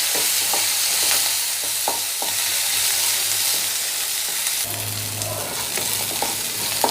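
Halved shallots frying in hot oil with fennel, cumin and black peppercorns in a kadai, sizzling steadily. A spatula stirring them knocks and scrapes against the pan now and then.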